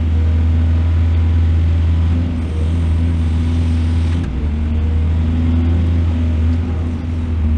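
Excavator's diesel engine running steadily with a deep drone.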